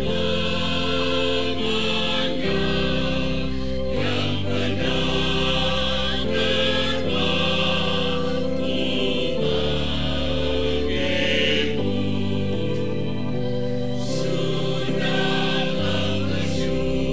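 Mixed church choir of men and women singing a hymn in parts over a sustained organ accompaniment, the chords changing every second or so.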